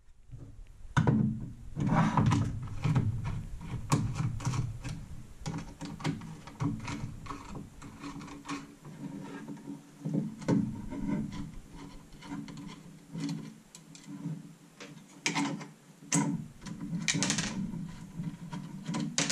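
Hard plastic holster and small mounting parts being handled and taken apart on a wooden workbench: irregular clicks, knocks and scraping as the belt loops come off and pieces are set down on the wood.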